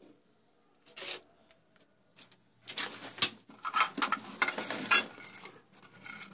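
Rummaging through clutter: rustling of cloth and plastic bags and scraping of junk as a rusty hurricane lantern is dug out, with a few sharp clicks. The busiest, loudest stretch runs from about three to five seconds in.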